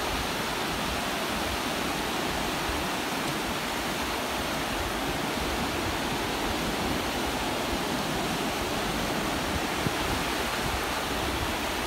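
Ocean surf breaking in the shallows: a steady, even rush of white water.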